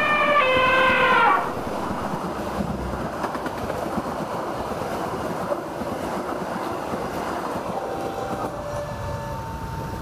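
Passenger train passing at speed. Its horn sounds, drops in pitch and cuts off about a second and a half in, then the coaches' wheels run steadily on the rails.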